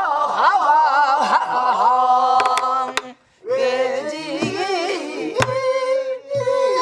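Pansori singing in a woman's voice: long, wavering held notes that break off briefly about three seconds in. A few sharp stick strokes on buk barrel drums mark the rhythm.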